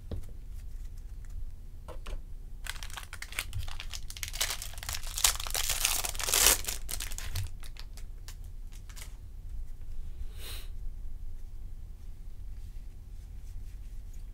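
Wrapper of a 2020 Topps Series 2 Jumbo baseball card pack being torn open and crinkled, a dense crackle loudest about four to six seconds in, followed by scattered light clicks and rustles.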